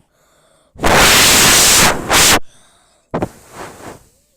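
A loud burst of rushing, hiss-like noise lasting about a second and a half, then a shorter, fainter burst near the end.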